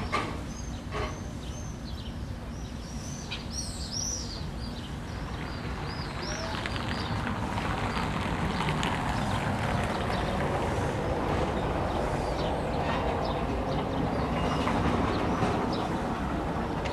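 Small birds chirping repeatedly over a steady low rumble that grows louder from about six seconds in.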